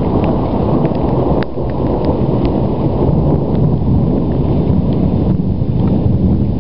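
Low, continuous rumbling of thunder from an electrical storm, with a few light ticks over it.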